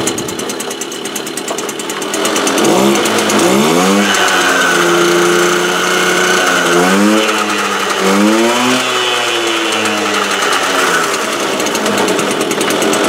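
Motobécane AV7 two-stroke moped engine with a 65 cc kit, running on the stand after its breaker-point ignition has been retimed, and running well. The throttle is blipped: the revs rise and fall about three seconds in and twice more around the middle, with steady running in between.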